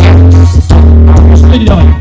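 Live band music from a stage: loud, with a heavy, sustained bass line and keyboard and drums, between rapped vocal lines.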